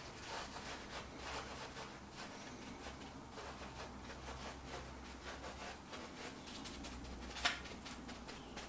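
Faint, soft rubbing and patting of a paper towel working seasoning into raw pork ribs on a platter, with one short tap near the end.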